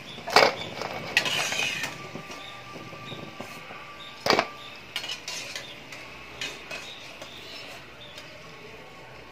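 Crisp-fried potato-and-rice balls clattering and clinking on a stainless steel plate as they are tossed about. There are two sharp knocks, about half a second and four seconds in, a short rattle, and lighter clicks between them. The hard, dry rattle is the sign of a well-crisped crust.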